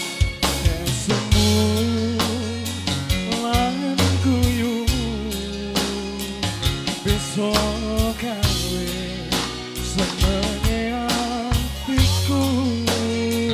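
Live band music: a drum kit keeps a steady beat under a deep bass and a melody that bends in pitch.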